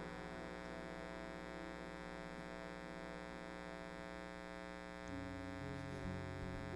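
Steady electrical hum and buzz from the band's amplifiers and sound system, idling after the song has ended. About five seconds in, a low sustained tone joins it.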